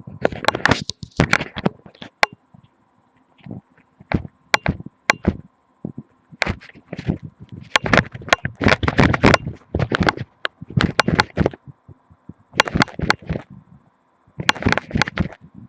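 Webcam microphone held against the body, picking up irregular sharp clicks and rough rubbing as it moves against skin and bone, with a faint steady electronic hum underneath.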